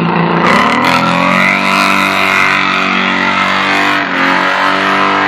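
Straight-six engine of a VL Commodore held at high revs during a burnout. The revs dip briefly and climb back about half a second in and again near four seconds, otherwise holding steady.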